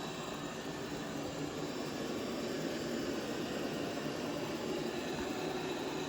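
Eufy robot vacuum running, with a steady, unbroken motor noise as it cleans the floor.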